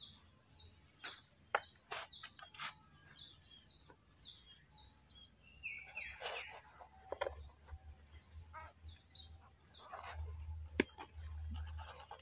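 A small bird chirping over and over, two to three short high chirps a second, with a short falling squeal about six seconds in and a few scattered knocks.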